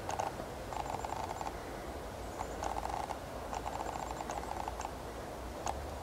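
White-tailed bucks sparring, their antlers clicking and clattering in five or so short bursts of rapid clicks, each under a second long.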